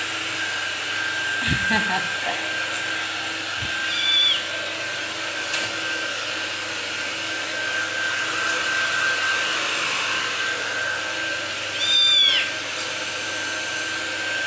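Persian kitten mewing twice from inside its wire cage, short high-pitched mews about four seconds in and again near twelve seconds: a kitten that wants to be let out. A steady whirring hum runs underneath, with a few light knocks early on.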